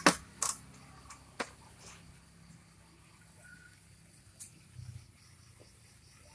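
Small fireworks popping: a few sharp, separate cracks, the loudest at the very start, another about half a second later and one more about a second and a half in, then a fainter pop past four seconds.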